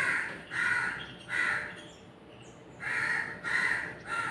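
A crow cawing: two runs of three short, hoarse caws, with a pause of about a second and a half between them.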